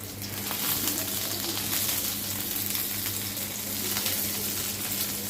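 Small sea chapila fish frying in hot oil in a pan, sizzling steadily as they are turned over. The sizzle swells just after the start, with a few light clicks.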